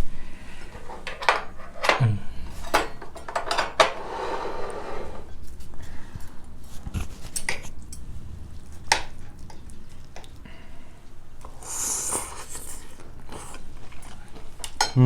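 Cutlery clinking and scraping against dishes: scattered sharp clicks, with two longer scrapes about four seconds in and near twelve seconds.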